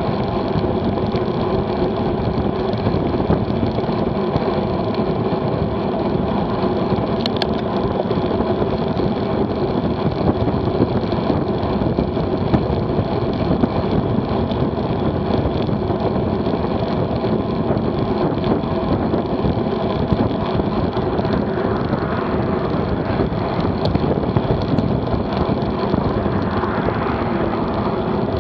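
Steady wind rush over a bike-mounted action camera's microphone at road-bike speed, about 25–28 mph, mixed with tyre and road hum. A car's noise builds and passes over the last few seconds.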